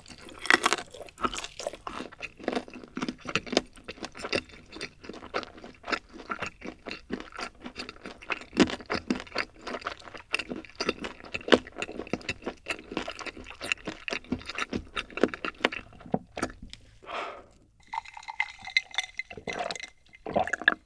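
Close-miked mouth sounds of a person chewing a mouthful of fried chicken, with many quick wet clicks and smacks. Near the end, a few gulps from a drink.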